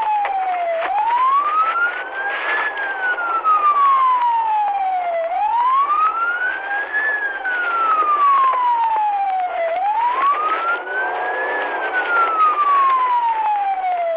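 Police siren on the wail setting, one tone rising and falling slowly about every four and a half seconds, heard from the pursuing cruiser.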